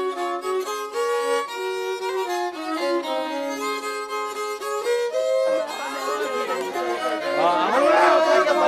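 A fiddle playing a melody of short stepping notes. About five and a half seconds in, many voices start chattering over it while the music goes on underneath.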